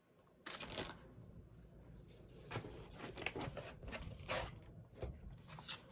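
Rustling and crinkling of items and packaging handled by hand, with a sharp crinkle about half a second in and scattered smaller rustles after it.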